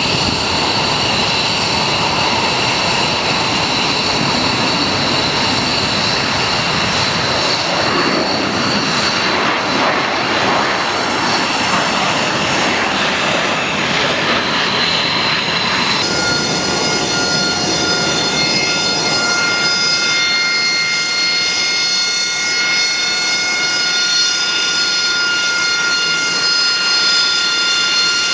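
AV-8B Harrier's Pegasus turbofan running loud, a steady rushing noise with a whistling whine over it. About halfway through it cuts abruptly to a steadier high-pitched turbine whine with several clear, sustained tones.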